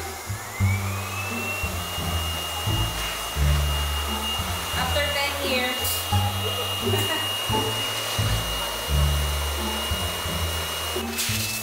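Pet grooming blower motor spinning up, its whine rising over the first second or two and then holding steady and high as it blows. Background music with a low bass line plays underneath.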